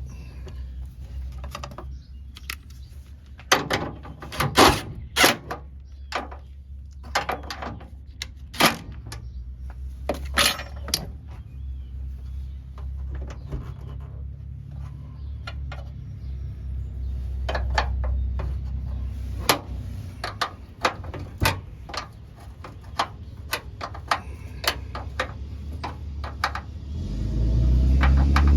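Scattered metallic clicks and clinks of hand tools and hardware on the hood-strut brackets, over a low steady hum. A louder low rumble comes in near the end.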